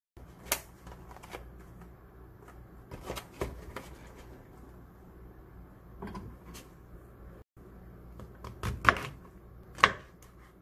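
A kitchen knife cuts through the base of an oyster mushroom cluster on a cutting board, with two sharp knocks of the blade on the board near the end. Before that come light rustling and scattered soft knocks as the mushroom cluster is handled on the board.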